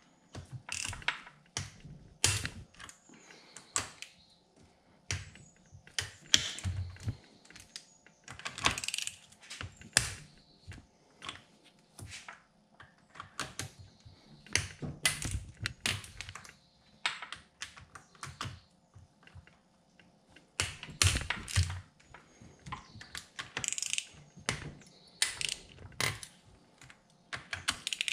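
Ratchet wrench clicking in short, irregular runs, with knocks of the socket and tools on metal, as the 12 mm head bolts on a Honda CB550 cylinder head are loosened one after another.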